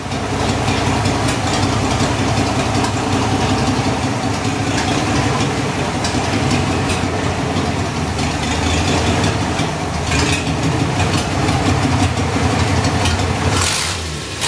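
1958 Chevrolet engine running at idle through its new custom exhaust, a steady low-pitched sound, as the car begins to back out.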